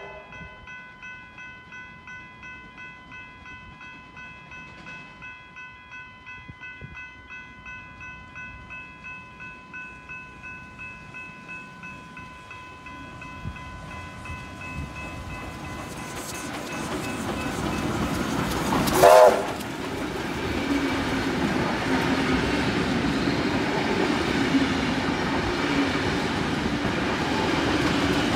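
Level crossing bells ring in a steady pulse of about two strokes a second while the rumble of a double-headed K-class steam train grows and drowns them out. About two-thirds of the way through comes one short, loud blast of the steam whistle, then the locomotives and carriages run through the crossing.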